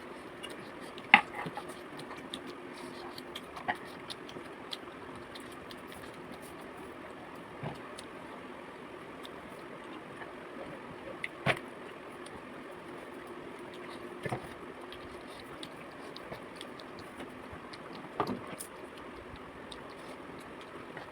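Quiet sounds of people eating from plates: about six sharp clicks and knocks spread out, over a steady low hum.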